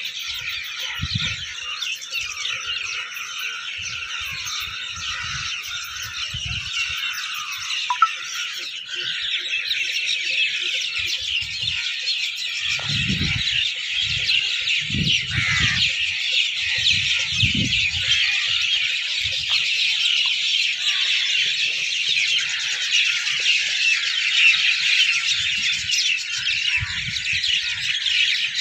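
Dense, steady high-pitched chirring of an evening chorus of field insects and birds, with scattered low thumps from handling or walking, strongest in the middle.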